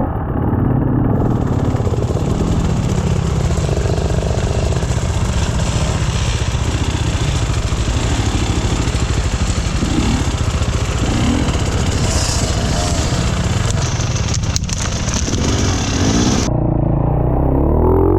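Off-road enduro motorcycle engine running, with a rushing hiss over it and a few sharp knocks about fourteen and a half seconds in.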